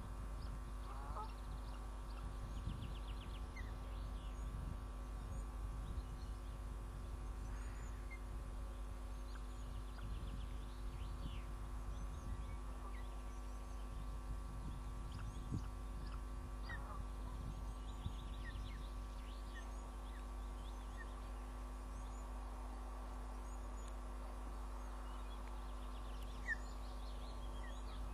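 Short bird chirps and calls scattered over a steady hum made of several fixed tones, with a low rumble underneath; the clearest chirp comes near the end.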